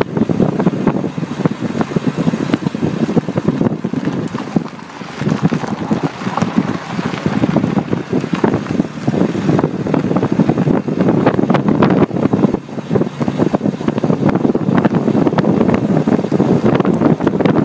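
Wind buffeting a microphone mounted low on the side of a Mitsubishi Delica D5, over the rumble of its tyres rolling on a rough, debris-strewn lane. The noise is dense and uneven, with many short crackles throughout.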